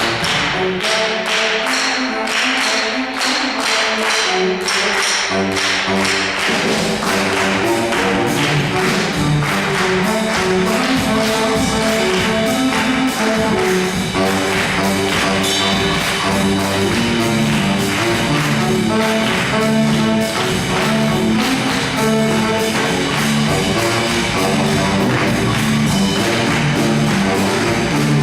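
Junior high school band playing, with evenly repeated percussion strokes over pitched wind parts; the low instruments come in about five seconds in.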